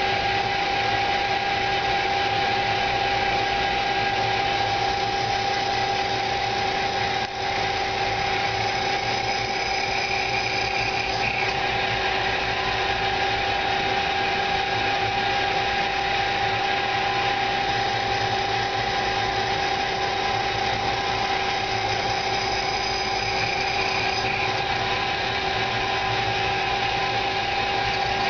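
CNC lathe running a live-tool-driven right-angle head for inside-diameter machining: a steady whine with two constant tones over a hiss, briefly dipping about seven seconds in.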